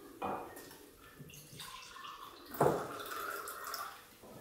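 White wine poured and splashing from a terracotta jug into a clay cup, with a sharp knock about two and a half seconds in.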